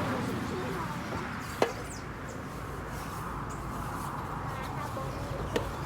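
Water from a garden hose spraying onto the van's tyres, a steady hiss of spray, with two sharp clicks: one about one and a half seconds in and a fainter one near the end.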